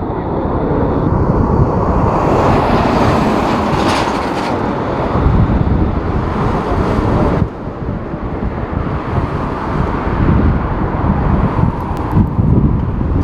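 Jet airliner engine noise mixed with strong wind rumbling on the microphone. The sound drops and changes abruptly about seven seconds in.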